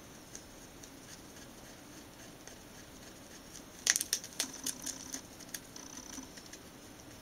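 A rabbit chewing and tearing a sheet of paper: a faint background at first, then a burst of sharp paper crackles and crunches about four seconds in, thinning out over the next two seconds.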